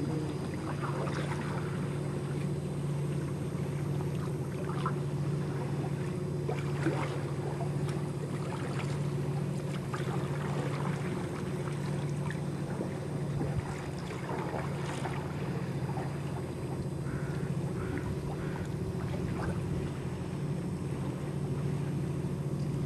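Sea kayak paddle dipping in calm water, with light splashes and drips scattered through, over a steady low hum.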